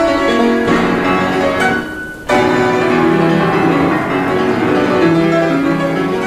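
Classical-style piano music playing slow held notes and chords. About two seconds in the sound briefly falls away, then comes back suddenly at full level.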